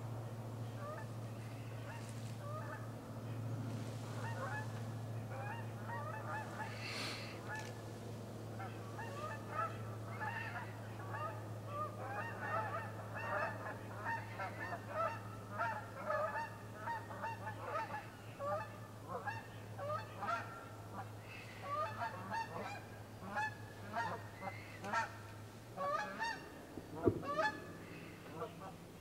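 A flock of geese honking: many short, overlapping calls that grow thicker about ten seconds in. Underneath runs a steady low hum that cuts off near the end, followed by a single sharp click.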